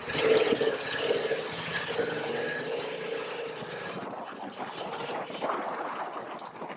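Riding a Yamaha MT-07's parallel-twin engine, heard from a helmet-mounted camera, with wind rushing over the microphone. A pitched engine hum that wavers slightly in the first few seconds, then fades under the rushing wind.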